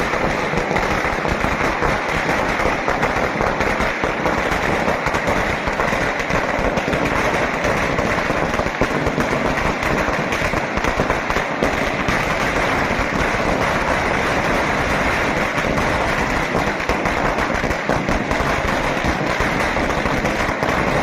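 Firecrackers bursting in a rapid, dense crackle of pops with no break.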